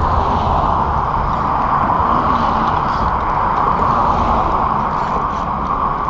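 Steady wind rumble on the microphone mixed with a constant hiss of road traffic crossing the bridge.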